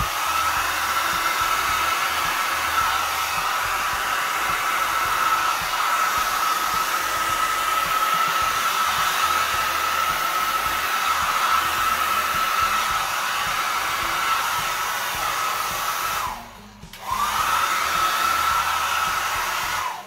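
Small travel hair dryer running: a steady whine over rushing air. Near the end it cuts out for about a second, then whines back up to speed.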